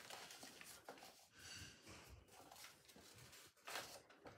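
Near silence: room tone with a few faint, brief handling sounds.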